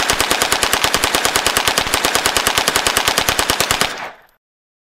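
Uzi submachine gun firing a long full-auto burst at about ten shots a second. It stops about four seconds in, leaving a short fading echo.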